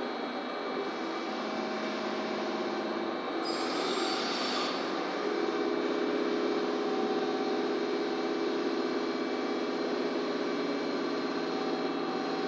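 Steady machine hum with several held tones. A brief, brighter hiss with a high tone comes about three and a half seconds in and lasts about a second and a half.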